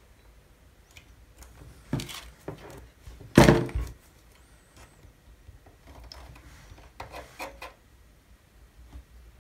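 Small handling knocks and clicks from hands and a flat metal tool working a pin bracket into the wooden hull of a model ship. The loudest is a single knock a little over three seconds in, with another near two seconds and a run of small clicks around seven seconds.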